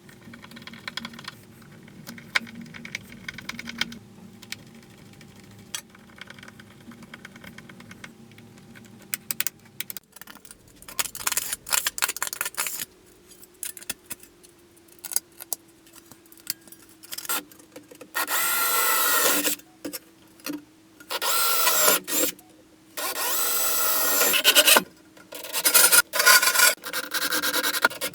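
Homemade belt grinder running with a steady motor hum. In the last third, a workpiece is pressed against the abrasive belt in repeated loud grinding passes of a second or two each, with short gaps between them.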